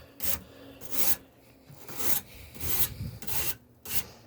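Wire brush scrubbing back and forth across an air conditioner's dirt-clogged coil fins, a rhythmic rasping scrape of about six strokes, roughly one every half to one second.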